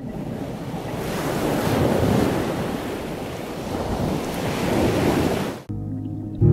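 Breaking ocean waves churning, a steady rushing noise that cuts off suddenly near the end, where quiet string music begins.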